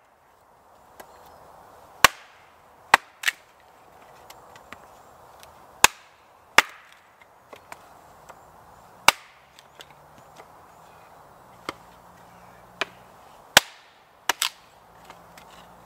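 Small axe chopping and splitting wood on a log chopping block: about a dozen sharp, irregularly spaced chops, some in quick pairs.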